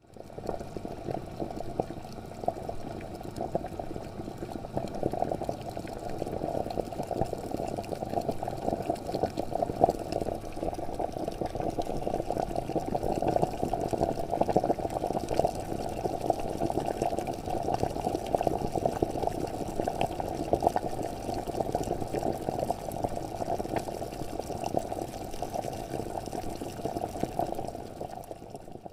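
Water at a steady rolling boil: a dense, low bubbling that keeps up evenly and stops suddenly near the end.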